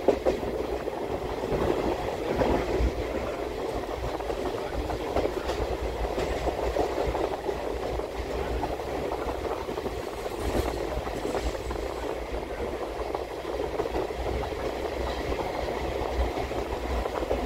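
Passenger express train running, heard from on board: a steady rumble of the coach wheels on the track, with a few sharp clicks.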